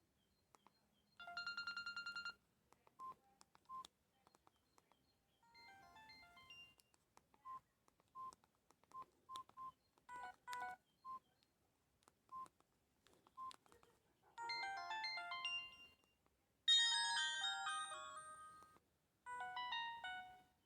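Samsung E1200 phone's small speaker playing short previews of several ringtones one after another: a brief held tone, then scattered short single beeps, then snippets of bright, electronic stepwise melodies, the loudest near the end.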